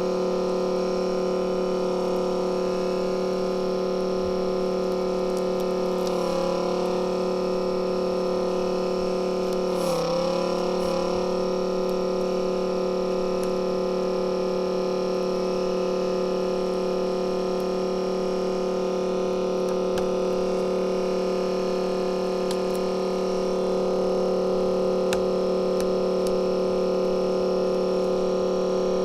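A steady electrical hum at a constant pitch, with a faint hiss under it.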